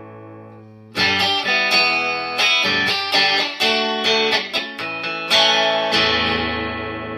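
Electric guitar played clean, without a pedal, through an amp. A chord rings and fades, then about a second in comes a short riff of picked notes and strums, ending on a chord left to ring out.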